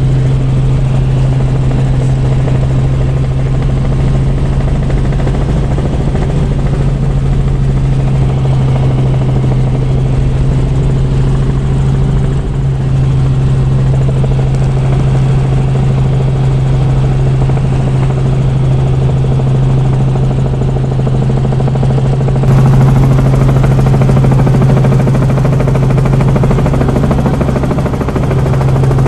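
Helicopter engine and rotor noise heard from inside the cabin in flight: a loud, steady drone with a strong low hum. About three-quarters of the way through it becomes slightly louder and fuller.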